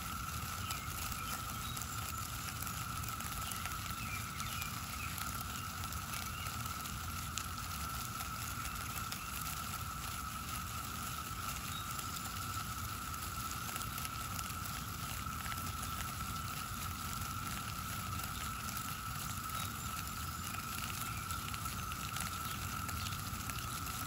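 Brood X periodical cicadas in a chorus: a steady drone held on one pitch, with a crackling rustle underneath from the massed insects.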